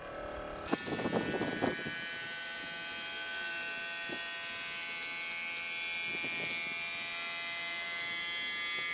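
Small brushed DC motor driving a 3D-printed centrifugal water pump, starting up and then running with a steady whine as it pumps water out of a tank. A rush of water comes through in the first couple of seconds.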